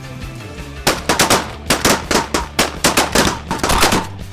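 Several shotguns firing a rapid, overlapping volley of many shots, starting about a second in, over background music.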